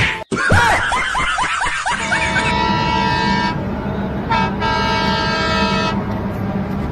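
A wavering cry that rises and falls for about a second and a half, then a train's air horn sounding a long steady blast, broken briefly about halfway through.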